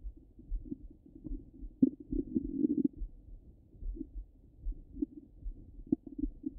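Stomach and bowel gurgles heard through a Littmann stethoscope on the belly. Soft rumbling gurgles with a sharp pop a little under two seconds in and another near the end, and a longer gurgle between two and three seconds in. A regular low pulse runs underneath, about twice a second.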